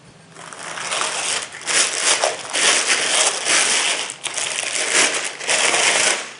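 Plastic packaging crinkling and rustling in irregular handfuls as it is handled, typical of a small accessory being unwrapped.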